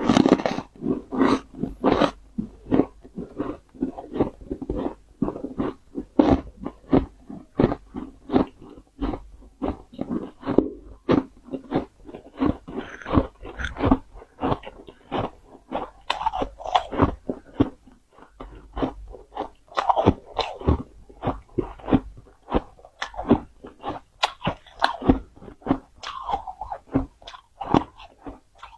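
Close-up chewing of powdery freezer frost: a steady run of soft, crisp crunches, about two a second, as mouthfuls of the frost are bitten and chewed.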